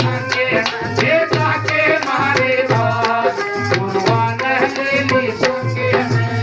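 Instrumental bhajan music: a steady tabla-style drum beat with rattling percussion under a wavering melody line.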